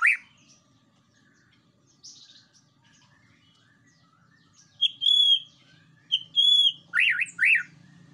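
White-rumped shama singing in short phrases: two clear whistled notes about five and six and a half seconds in, then a quick run of up-and-down slurred notes near the end.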